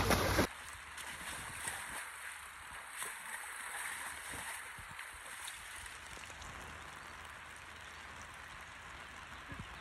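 A horse pawing and wading in shallow lake water: quiet splashing and sloshing, louder for the first half-second.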